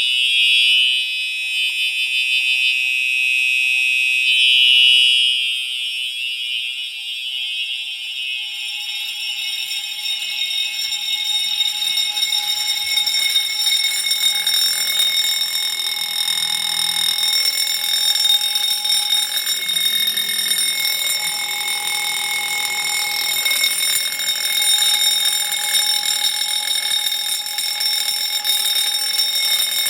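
A Simplex TrueAlert remote horn and a Wheelock 6-inch vibrating fire alarm bell sound together on continuous, the bell's striker hammering its gong at high speed. The horn's loud blare drops out about five seconds in, and the bell then rings on steadily.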